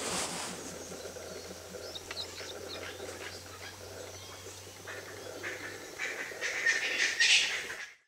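Wild birds calling: scattered short chirps, then a louder burst of calls near the end. A low steady hum runs beneath and stops about three-quarters of the way through.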